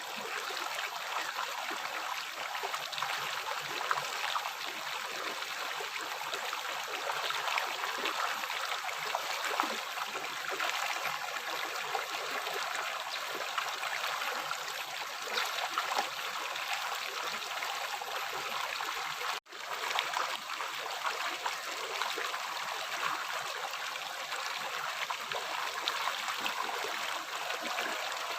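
River water flowing, a steady rushing and trickling. It cuts out for an instant about two-thirds of the way through.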